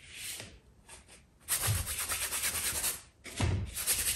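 A wide paintbrush scrubbing thin, diluted paint across a stretched canvas: a short stroke, then two long strokes of about a second and a half each. A dull low thud sounds as each long stroke begins.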